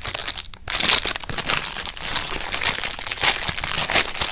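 Clear plastic packaging bag crinkling and rustling as it is handled and pulled open by hand to unwrap a foam squishy toy, with a brief break about half a second in.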